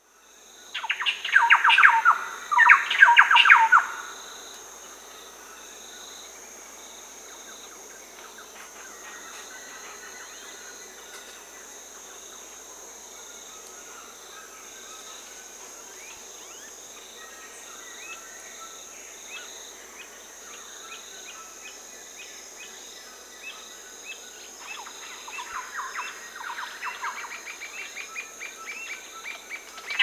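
Amazon rainforest birds and insects. Two loud runs of rapid trilled bird notes come in the first few seconds, then scattered faint calls, and a rapid trill builds again near the end, all over a steady high insect drone.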